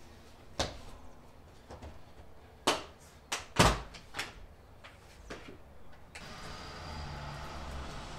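Plastic car-interior sill trim panels being pried up with a plastic trim tool: a series of sharp snaps as the panel clips pop loose, the loudest about three and a half seconds in. A steady faint hiss sets in about six seconds in.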